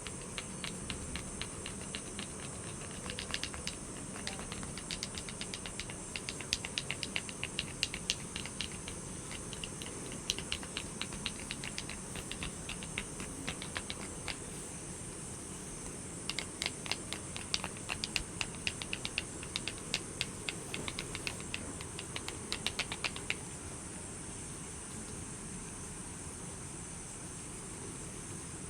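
Steady hiss of light rain with runs of rapid, light clicking taps layered over it; the clicks stop about four-fifths of the way through, leaving only the rain hiss.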